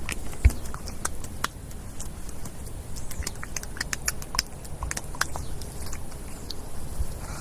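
Wet mud being squished and worked: irregular squelching clicks and pops over a low rumble, with a heavier thump about half a second in.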